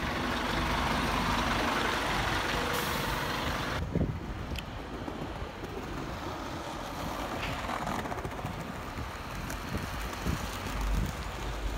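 Double-decker bus passing close by, a loud steady rush of engine and road noise that cuts off abruptly about four seconds in. Then a quieter engine rumble as a double-decker bus pulls out of the station.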